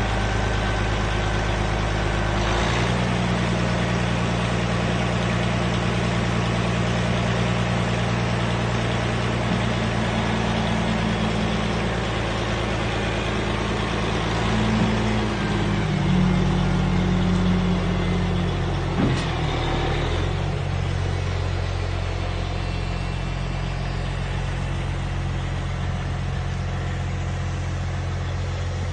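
Diesel engine of a 2004 Sterling quad-axle dump truck running while the hydraulic hoist raises the dump body. The engine speed steps up a few seconds in, shifts pitch past the middle with a single sharp knock, then drops back to a lower steady run.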